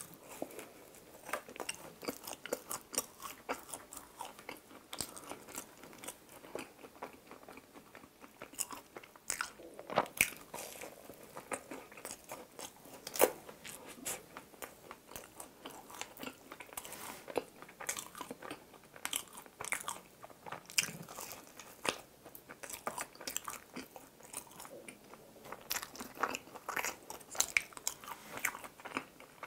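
Close-miked biting and chewing of a Krispy Kreme chocolate waffle-nut doughnut topped with chocolate and cookie crumbs: soft crunches and many small crackles and clicks, the loudest bites about 10 and 13 seconds in.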